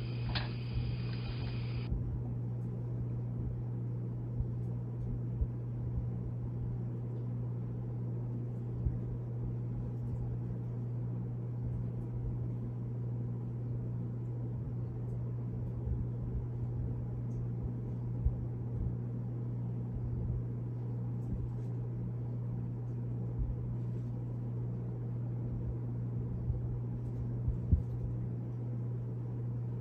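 A steady low hum with a faint hiss under it, broken by scattered soft low thumps. A brief higher hiss with thin steady tones cuts off about two seconds in.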